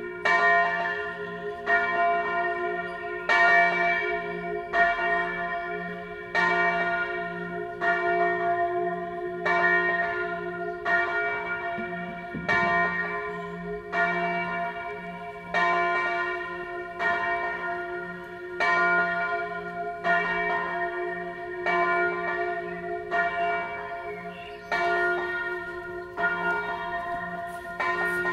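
A large bronze church bell tuned to F3, cast by Achille Mazzola in 1928 and weighing about 689 kg, is swung alone in the Tyrolean style. Its clapper strikes about every second and a half, and each stroke rings on into the next over a steady low hum.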